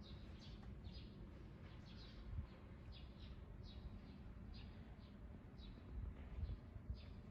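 Faint small-bird chirping: short, high, downward-sliding chirps repeated about twice a second, over a low rumble.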